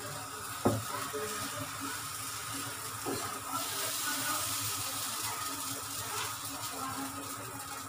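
Mung dal batter sizzling on a hot pan as it is spread out with a plastic spoon, with a sharp tap of the spoon against the pan about a second in and a softer one a few seconds later.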